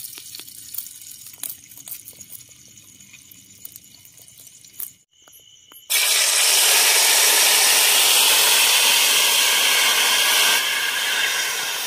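Faint scattered clicks, then, after a short break, a loud steady sizzling hiss starts suddenly about six seconds in: chopped snake and bird meat stir-frying in a hot pan.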